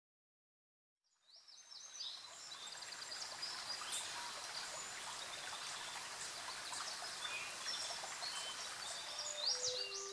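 Shallow creek water running, with birds chirping over it; the sound fades in from silence about a second in.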